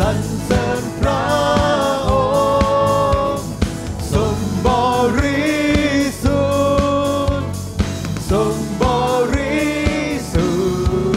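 Live worship band and singers performing a Christian worship song: held sung notes over the band, with a regular drum beat.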